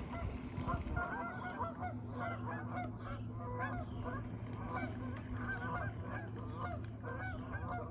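A flock of birds calling continuously, many short rising-and-falling calls overlapping one another, over a steady low hum.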